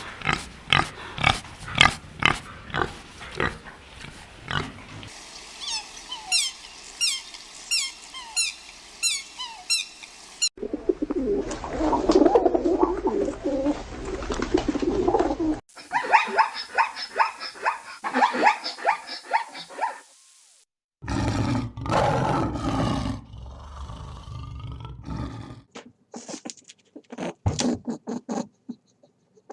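A string of different animal calls, one recording after another with abrupt cuts: series of short repeated calls, a stretch of low grunts, and other cries.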